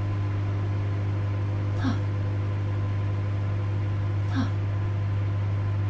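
Microwave oven running: a steady low hum, with a short chirp about every two and a half seconds.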